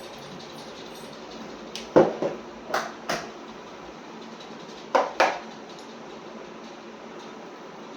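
Dishes and utensils knocking together: six sharp clacks in three pairs, about two, three and five seconds in, over a steady background noise.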